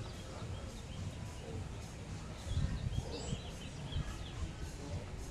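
Street ambience: a steady low city hum, with birds chirping, clearest about three seconds in, and a few low thumps around the same time.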